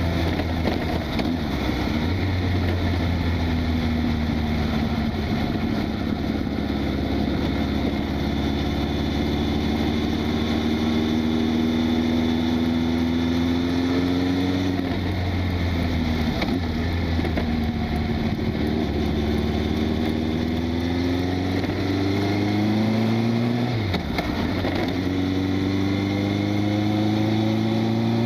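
Honda CB1000 Super Four's inline-four engine under way, its note climbing steadily, dropping sharply about halfway through and again about three-quarters through, then climbing again, over steady wind and road noise.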